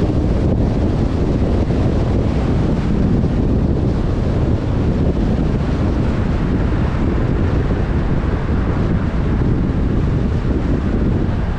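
Volkswagen Mk6 Golf R on the move: a steady low rumble of engine and road noise, with wind buffeting the microphone.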